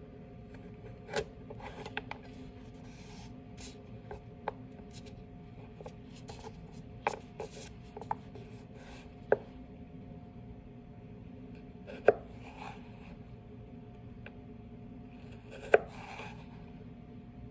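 Chef's knife cutting carrot on a plastic cutting board: irregular sharp knocks of the blade meeting the board, with softer scraping and shuffling as the carrot pieces are moved. The loudest knocks come about halfway through, two-thirds of the way and near the end.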